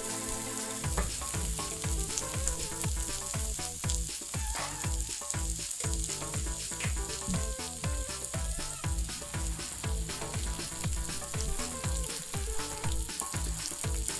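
Sliced pork belly sizzling steadily in a hot nonstick frying pan as it browns. A steady beat of background music runs underneath from about a second in.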